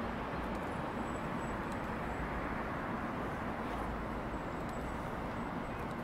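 Steady street traffic noise: a continuous even rumble of vehicles, with a few faint ticks.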